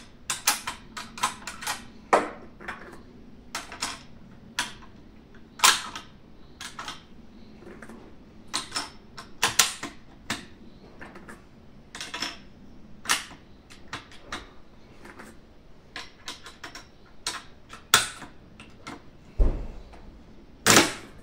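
Gunfire on a shooting range: sharp cracks at irregular intervals, about a dozen loud ones among fainter ones. Near the end, a deeper thud followed closely by a very loud crack.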